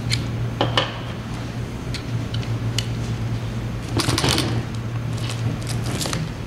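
Scattered clicks, taps and rustles of a plastic brace and a cordless drill being handled and positioned, with a denser clatter about four seconds in, over a steady low hum.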